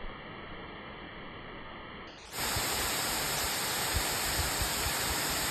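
Steady rushing noise of a waterfall pouring onto rocks, growing louder and brighter about two seconds in, with a few soft low bumps near the end.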